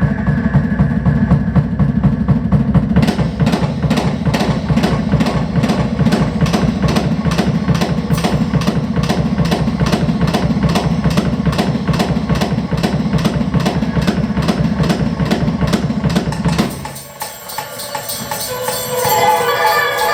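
Live percussion music: rapid, evenly repeated strikes over a low rumbling drone. The drone cuts off about 17 seconds in, leaving ringing pitched tones near the end.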